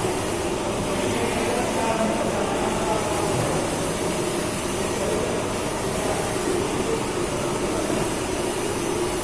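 Steady mechanical hum and whir of running machinery, with faint voices under it.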